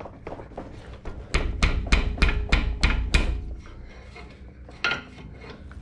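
Sharp metallic clicks of a hand tool working a suspension bolt, about eight in two seconds with a low rumble of handling under them, then one more click near the end.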